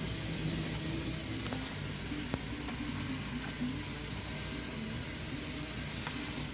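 Low, steady rumble of a vehicle's running engine heard from inside its cabin, with a few sharp taps of snow striking the glass.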